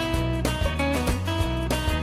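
Background pop song in an instrumental passage between sung lines, with pitched notes over a steady beat.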